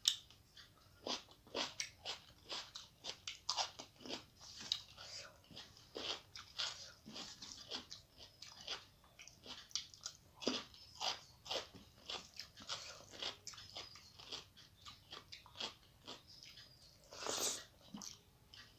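Close-up chewing and crunching as a person eats raw cucumber and rice by hand, with wet mouth clicks several times a second and one louder noise near the end.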